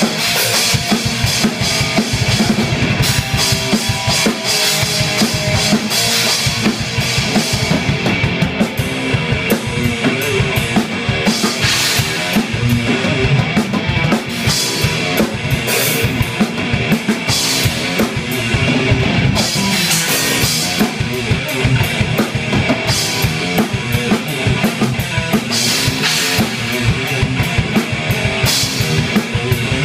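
Rock jam on a Gretsch drum kit and an electric guitar, played loud: a busy bass drum and snare beat with cymbal crashes every few seconds under held guitar chords.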